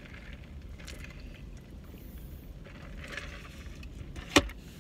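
Steady low rumble inside a car, with a few soft sips through a drinking straw and a single sharp click near the end.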